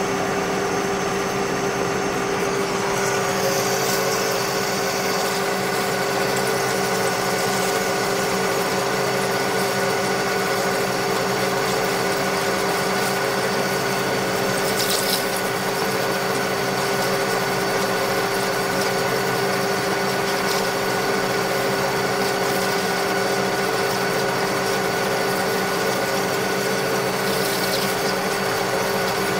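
Metal lathe running steadily: a constant machine hum with a steady whine, and a few brief high hissy sounds from the cutting.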